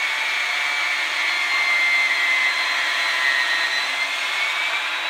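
Cordless drill spinning a reamer inside a cork rod handle to open up its bore, running steadily with a high motor whine that sags slightly in pitch partway through and recovers.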